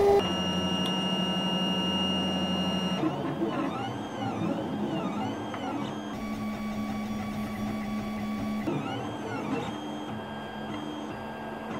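3D printer stepper motors whining as the print head moves, starting a print. The whine shifts to a new pitch every few seconds. In two stretches it swoops up and down in a steady repeating pattern.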